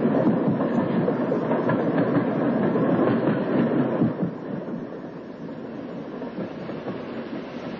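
Train carriage rumbling and clattering along the rails, a dense steady noise that drops in level about four seconds in.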